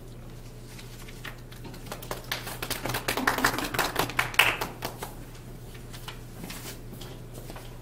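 A small audience clapping, starting about two seconds in, swelling briefly and dying out about three seconds later.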